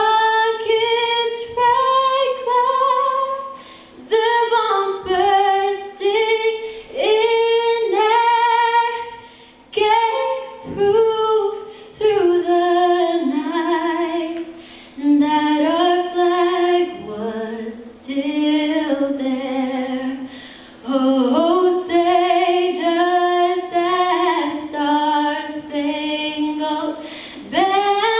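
A woman singing a national anthem solo and unaccompanied into a microphone, in long phrases with vibrato on the held notes.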